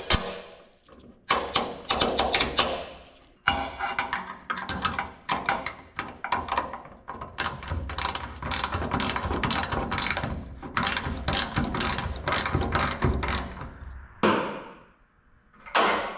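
Ratchet wrench clicking in quick runs as it tightens the mounting bolt of an LED work light's bracket, with brief pauses between runs.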